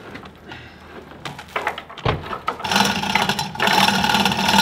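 Manual one-ton chain hoist worked by its hand chain, lifting a 2,000-pound tote of feed: the chain rattles and clatters, getting much louder after a knock about two seconds in.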